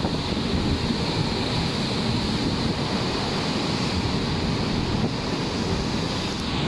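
Rough, storm-driven sea churning and breaking in whitecaps and foam beside a cruise ship, a steady rush of water, with strong wind buffeting the microphone.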